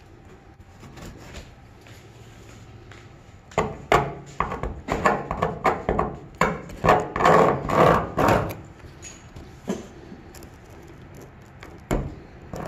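Hand tool scraping and cutting at old windshield seal. A run of rough scraping strokes starts about three and a half seconds in and is loudest toward its end, followed by a single knock near the end.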